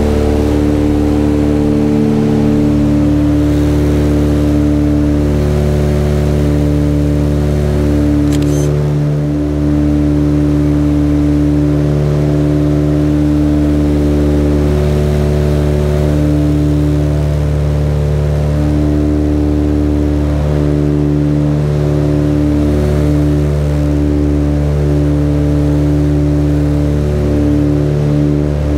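Cabin noise of a Britten-Norman Islander in cruise: its twin piston engines and propellers drone steadily, with a slow, uneven wavering beat.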